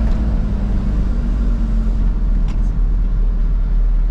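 Engine and road rumble inside the cab of a Fuso Canter light truck under way, steady and loud, with a steady hum that fades out about two seconds in.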